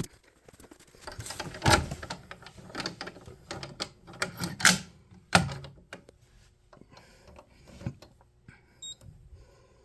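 Irregular clicks, knocks and rustling of hands working a fire alarm manual pull station as it is reset, with a few sharper clacks about two seconds and five seconds in.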